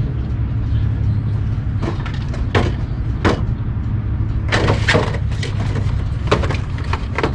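A 1973 GMC C2500's V8 idling steadily with the hood up. Over it, a cardboard parts box is handled close by, giving a series of sharp knocks and crinkles, the busiest stretch about four and a half to five seconds in.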